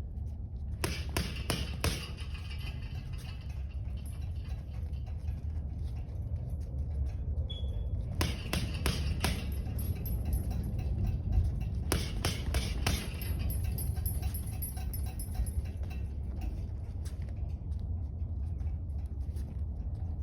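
Rapid flurries of typewriter jabs: three quick runs of sharp slapping snaps, about a second in, at eight seconds and at twelve seconds, over a steady low rumble.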